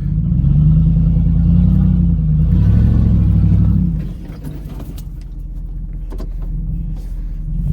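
Third-generation Dodge Ram's Hemi V8, heard from inside the cab, pulling under throttle for about four seconds, then easing off to a lower, quieter run and picking up again near the end. A few light knocks in the quieter stretch.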